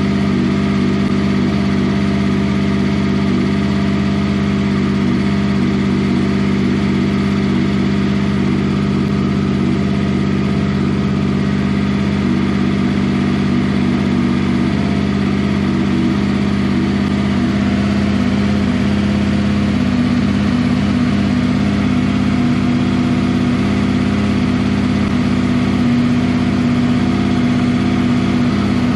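Honda VFR800 VTEC's V4 engine idling steadily at a constant speed, not revved, on its first run after a top-end rebuild with the valve clearances reset. It is running smoothly, held at idle while oil works its way round the freshly reassembled top end.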